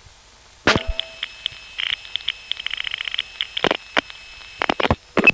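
Analog telephone line on a 1970s phone tape. A click, then panel revertive pulsing: a train of short, high ticks, running fastest in the middle. Then a few switching clicks, over line hiss and a faint steady high tone.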